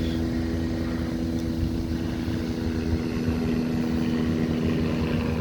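Helicopter flying nearby, a steady droning hum, with wind rumbling on the microphone.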